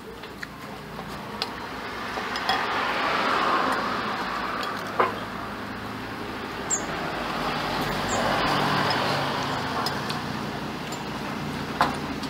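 Road traffic going by, the noise swelling and fading twice. A metal spoon clinks against a plate a couple of times.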